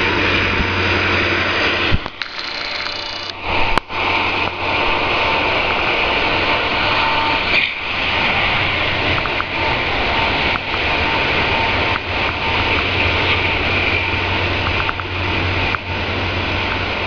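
Freight train of autorack cars rolling past: a loud, steady rumble of steel wheels on rail, with scattered sharp clicks. The sound drops out briefly about two seconds in.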